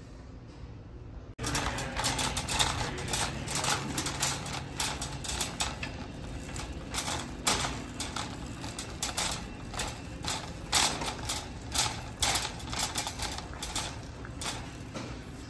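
Wire shopping cart rattling and clattering as it is pushed over a tiled store floor, a busy run of irregular clicks that starts about a second and a half in.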